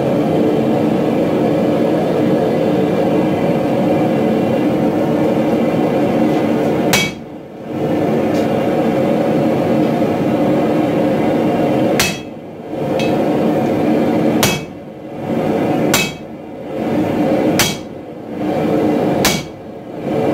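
Sledgehammer blows on a handled top tool held on red-hot steel on an anvil, six ringing strikes: the first about seven seconds in, then a run roughly every one and a half to two seconds. A steady roar runs underneath.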